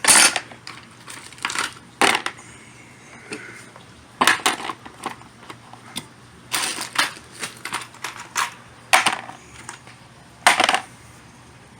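Metal hand tools set down one after another into a toolbox tray: about a dozen separate clinks and clatters at uneven intervals, the loudest right at the start and about ten and a half seconds in.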